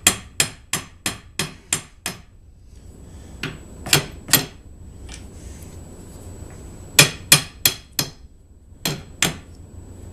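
A hammer tapping on a bushing in a cart wheel's hub, sharp metallic strikes in bursts: a quick run of about eight taps, then three, then four, then a last two.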